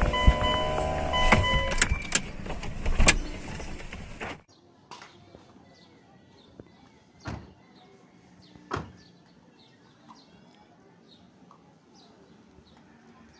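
Mitsubishi Montero Sport SUV heard from inside the cabin, running, with a couple of steady tones over the noise; it cuts off abruptly about four seconds in. Then, quieter and from outside the SUV, its door is worked, with two sharp knocks about a second and a half apart as it is shut.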